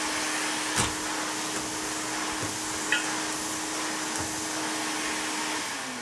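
Electrolux SuperJ canister vacuum running steadily with a steady hum, with a sharp click about a second in and a lighter one around three seconds. Near the end the motor is switched off and its pitch falls as it winds down.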